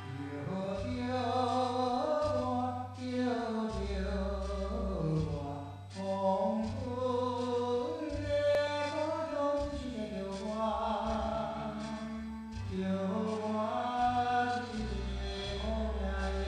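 Theme music: a slow melody over a steady low bass.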